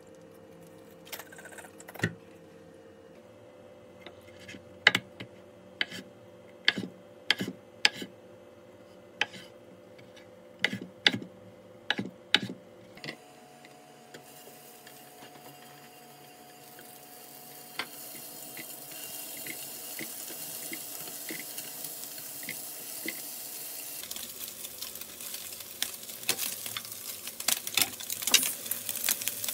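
A knife knocks on a wooden cutting board in a dozen or so sharp strikes as a block of Spam is sliced. From about halfway, Spam slices sizzle in a hot frying pan. The sizzle grows louder toward the end, with light clicks as the pieces are laid in and moved.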